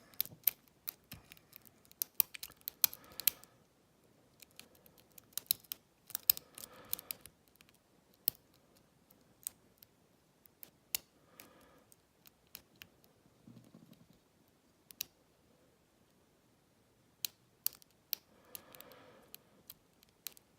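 Metal lock pick and tension wrench working the pin tumblers of an old American Lockwood lock cylinder: irregular small clicks and scrapes coming in clusters with pauses between.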